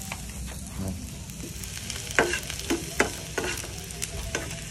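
Minced garlic sizzling in hot oil in a frying pan, with a metal spatula scraping and knocking against the pan several times from about two seconds in as it is stirred.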